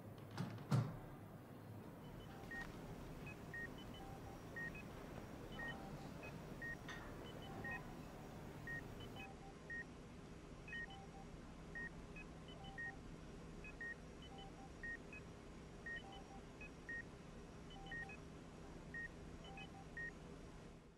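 Hospital patient monitor beeping faintly: short electronic beeps about once a second, alternating between a few pitches, over a low steady hum. Two knocks in the first second.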